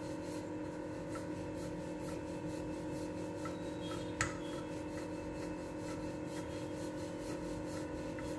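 Wooden rolling pin rolling back and forth over flour-dusted dough on a hard counter, a soft repeated rubbing, with one light knock about four seconds in. A steady hum runs underneath.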